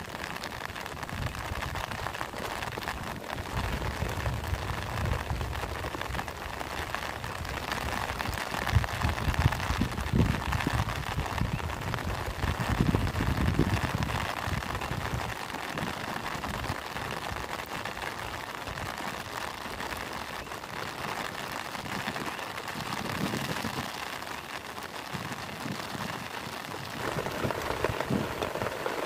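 Steady rain falling into shallow puddles and waterlogged grass, an even patter and hiss of drops hitting water. A low rumble swells up a couple of times in the first half.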